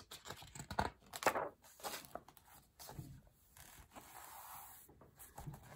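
Paper rustling and scraping as a large picture-book page is turned and smoothed flat by hand, in several short, quiet strokes.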